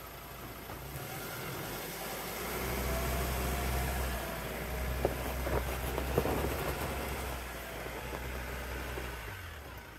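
4x4 engine running at low speed off-road, its note growing louder about two and a half seconds in and falling away near the end. A few sharp knocks come around the middle.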